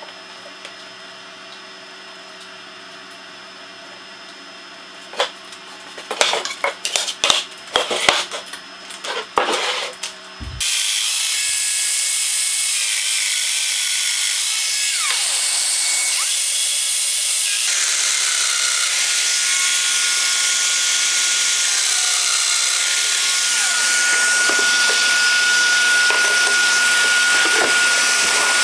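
A run of sharp clicks and knocks, then about ten seconds in a Festool Domino joiner and its hose-connected dust extractor start abruptly. They run loud and steady, with a steady high tone, as the joiner cuts mortises into the end-grain butcher block.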